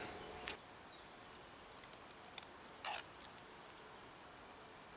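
Quiet outdoor background with faint, short high chirps and a few soft ticks, and one brief rustle or scrape about three seconds in.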